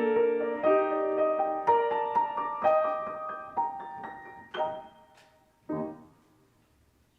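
Solo piano playing a slow closing phrase, the notes coming further apart, ending on a last chord near the end that fades away.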